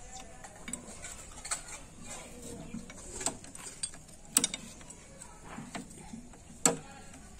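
Socket wrench working the bolts on a Greaves power tiller's cast-iron gearbox: irregular metal clicks and small clanks of the tool on the casing, with two sharper, louder knocks in the second half.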